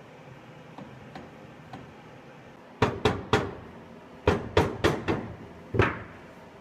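Hammer striking steel eight times, each blow ringing briefly: three quick strikes, then four more, then a single last blow.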